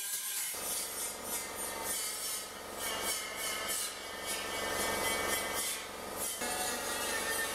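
Handheld rotary die grinder with a small abrasive disc spinning and grinding against the edge of a sheet-steel floor pan patch panel. It is a steady whine with a rasping hiss that starts about half a second in.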